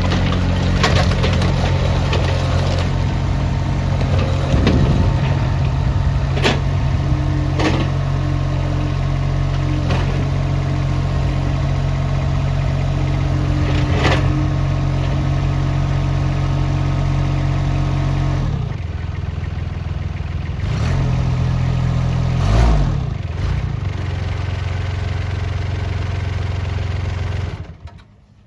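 Mini skid steer loader's engine running steadily, with a few sharp knocks. About two-thirds of the way through the note drops and gets quieter, and the sound cuts off just before the end.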